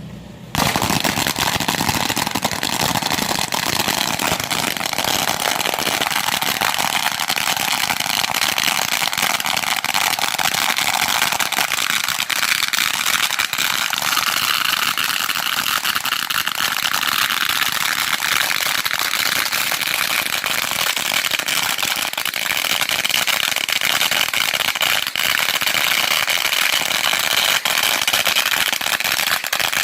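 A long string of firecrackers going off in a continuous rapid crackle of countless small bangs, starting abruptly about half a second in.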